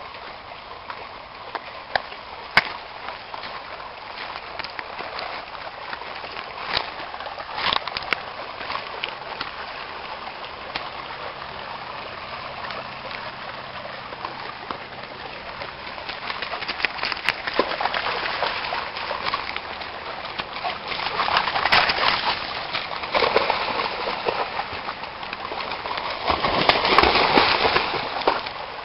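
Shallow rocky creek running steadily, with a few sharp clicks early on. In the second half a German shepherd splashes through the water, loudest about two-thirds in and again near the end.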